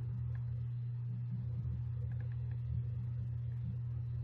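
Steady low hum with a few faint, short clicks over it.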